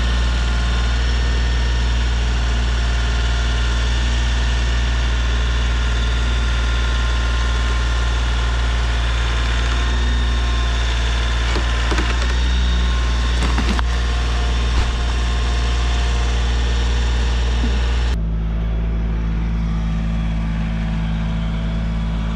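Tractor engine running steadily, with a few brief knocks in the middle. Near the end the sound changes abruptly to a steadier, lower hum.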